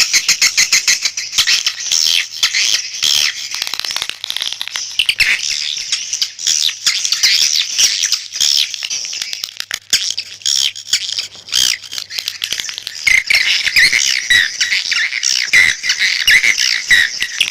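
Swiftlet calling sound (suara panggil), a lure recording of swiftlet calls: dense, rapid chattering chirps and clicks. About 13 seconds in, the chirps become lower and more tuneful.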